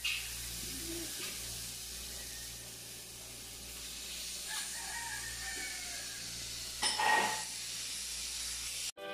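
Marinated chicken breast strips sizzling in a hot stainless steel frying pan: a steady hiss as the pieces are laid in. A brief louder call stands out in the background near seven seconds.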